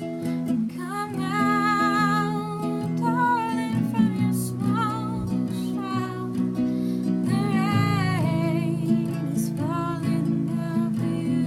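Acoustic guitar played under a woman's voice singing long, wavering, wordless-sounding notes in a slow song.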